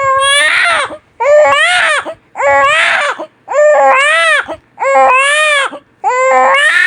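Newborn baby crying hard in a steady run of loud wails, about six in all, each one rising and falling in pitch and broken by a quick breath.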